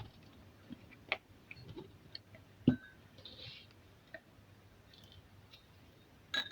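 Scattered light clicks and taps from chopped onion being layered into a mug with sugar sprinkled over it. About halfway comes one louder knock that rings briefly.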